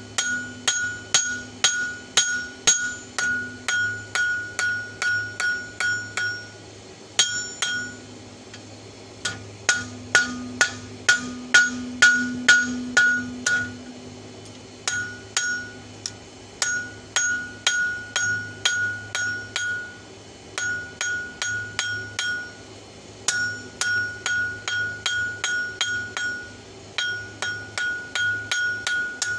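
Blacksmith's hand hammer striking red-hot steel on an anvil: steady runs of blows, about three a second, each with a clear metallic ring, broken by short pauses. The open end of an old wrench is being forged into fork tines.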